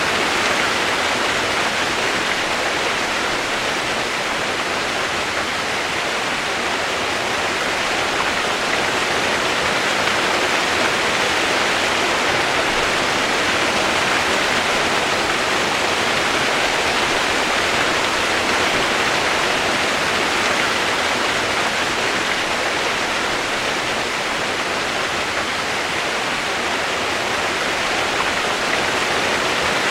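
Steady rain sound used as white noise: an even hiss of rainfall with no single drops standing out.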